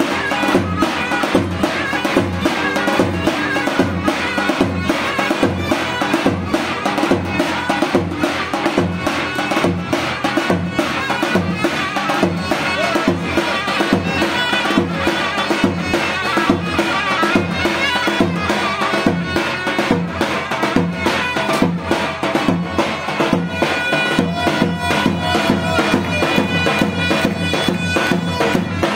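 Traditional folk wedding music: a loud, steady drum beat under a shrill, sustained reed pipe melody.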